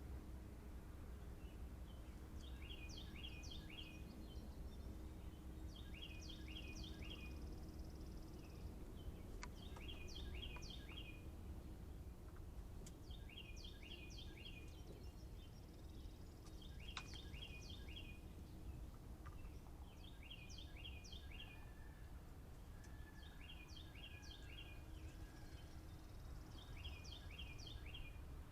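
A songbird repeats the same short song phrase about every three and a half seconds: one or two high notes, then a quick run of down-slurred chirps. It sings over a faint, steady low background rumble.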